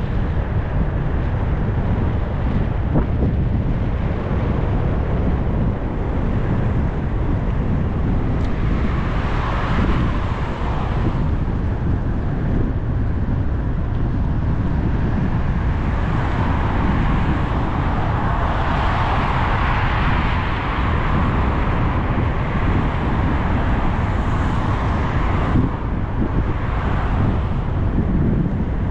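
Wind rushing over the microphone of a bicycle on the move, a steady low rumble, with road traffic swelling up and fading twice as cars pass, about a third of the way in and again past the middle.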